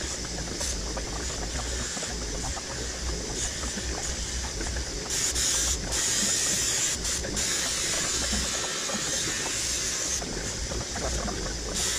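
Bench grinder running with a steady low hum while a thin stainless steel rod is ground against its spinning wheel, a hissing grind that grows louder for a few moments around the middle and again near the end.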